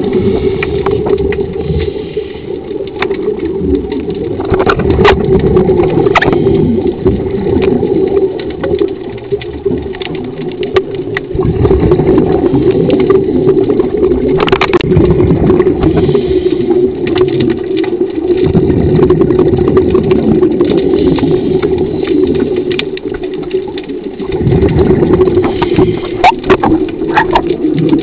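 Underwater diving scooter (diver propulsion vehicle) motor running with a steady hum, heard underwater, with scattered clicks on top.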